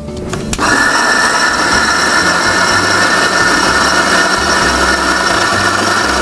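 Electric mixer-grinder (mixie) switched on about half a second in and running steadily at full speed, grinding curry leaves and drumstick leaves into a paste.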